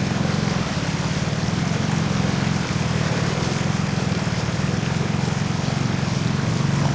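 A vehicle engine running steadily, its low hum pulsing evenly, under a broad hiss of wind or water noise.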